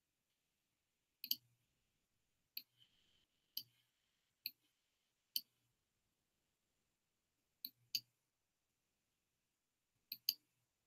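Computer mouse clicking: about ten sharp, separate clicks spread irregularly over near silence, several of them in quick pairs.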